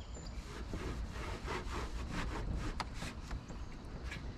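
A cloth rag scrubbing grime off a window frame in quick, irregular strokes, easing off near the end.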